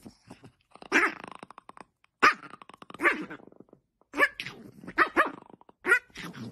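A dog hidden under a fluffy blanket growling and barking in a string of short bursts while a hand pokes into the blanket.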